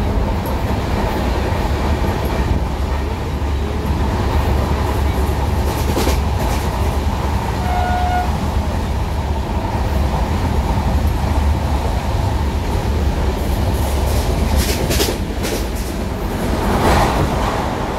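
A train running along the tracks: a steady, loud rumble with scattered sharp clicks from the wheels and rail joints.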